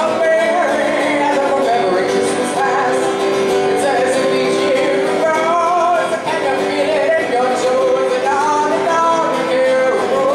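Live music: a song with voices singing over instrumental accompaniment.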